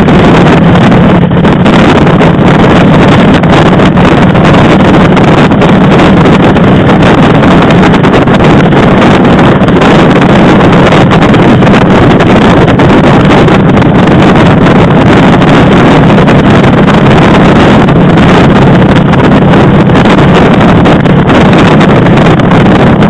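Motorcycle engine running steadily at cruising speed under a thick rush of wind noise on the microphone, very loud throughout with no pauses or changes in pitch.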